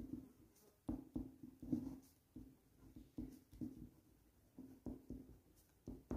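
Pen writing on paper: a faint run of short, irregular strokes as words are written out.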